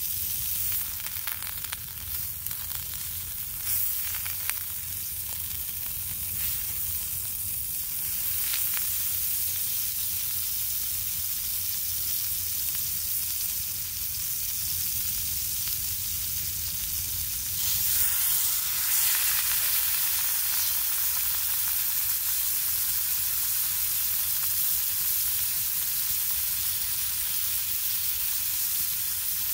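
Butter sizzling in a cast-iron skillet over a campfire: a steady frying hiss with a few sharp pops in the first several seconds. It grows louder about eighteen seconds in.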